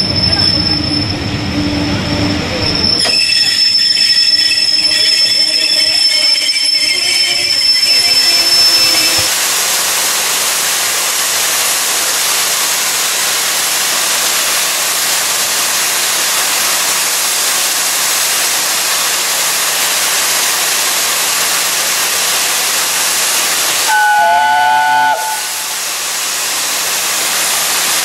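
BR A1 Pacific steam locomotive 60163 Tornado and its train: high wheel and brake squeal for the first several seconds, then a steady loud hiss of escaping steam. A short whistle blast sounds about 24 seconds in.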